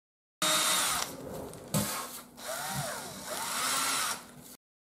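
A power drill runs with its bit boring into the edge of a foam wing, the motor pitch rising and falling as the speed is varied. It starts about half a second in, dips briefly twice and stops shortly before the end.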